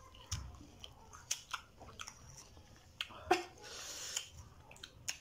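Two people chewing and biting mango slices: scattered short crunching clicks and mouth smacks, with a breathy hiss a little past the middle.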